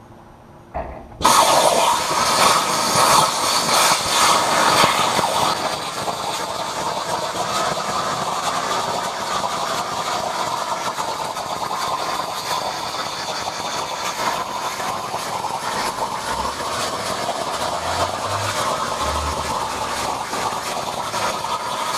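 Hypertherm Powermax 85 plasma torch on a CNC table cutting 10-gauge perforated metal sheet: the arc starts suddenly about a second in and runs as a steady loud hiss, a little louder for the first few seconds, then cuts off at the very end.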